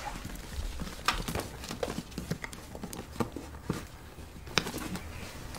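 Faint, irregular clicks and small knocks, a few spaced out over the seconds, above a quiet low room hum.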